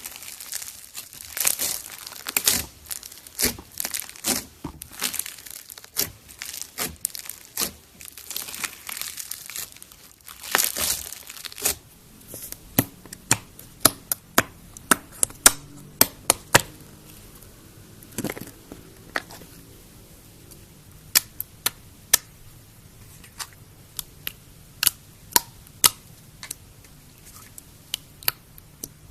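Homemade slime being worked by hand: a dense crackling and squishing for about the first twelve seconds, then separate sharp clicks and pops, a few a second.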